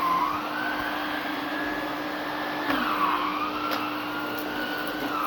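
Tristar canister vacuum cleaner running, a steady hum under a whine that wavers in pitch, dipping about two and a half seconds in and recovering. A faint click comes about a second later.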